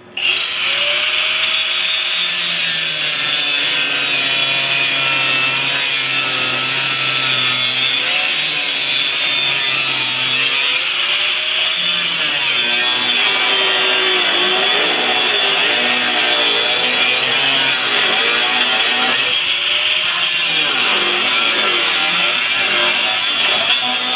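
A power tool running continuously, switching on abruptly at the start, with a steady high whine over a loud rushing noise.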